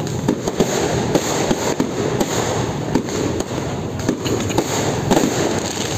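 Fireworks going off in quick succession: many sharp bangs and crackles over a continuous rumble.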